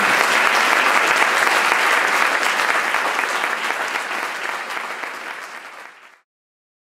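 Audience applauding, steady at first, then slowly fading and cut off suddenly near the end.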